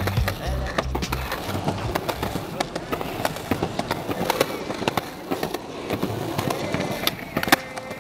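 Skateboard wheels rolling on a concrete sidewalk, with sharp pops and clacks of the board during flatground tricks. The loudest snap comes about seven and a half seconds in.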